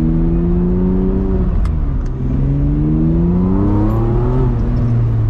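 Ferrari 575M's V12 with a Tubi exhaust and partial straight pipes, heard from inside the cabin while accelerating hard. The engine note climbs, drops at a gear change about a second and a half in, climbs again through the next gear, and falls away near the end.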